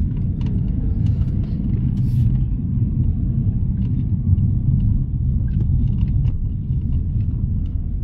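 Steady low rumble of road and engine noise inside the cabin of a moving car.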